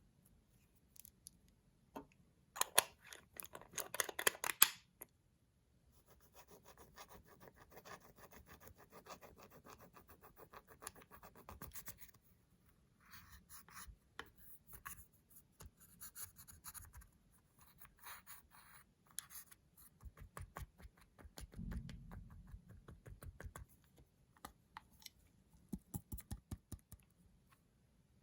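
Slime being worked and mixed with makeup, giving a dense run of crackly clicks and scraping. The loudest stretch comes about three to five seconds in, followed by quieter crackling passages broken by short pauses.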